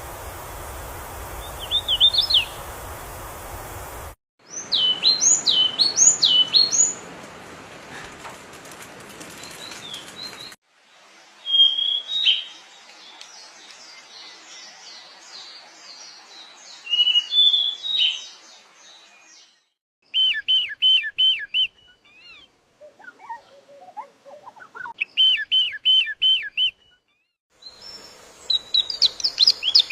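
Songbirds chirping and singing in short whistled phrases and quick runs of repeated notes. These are several separate recordings joined with abrupt cuts, and the background hiss changes or drops out at each cut.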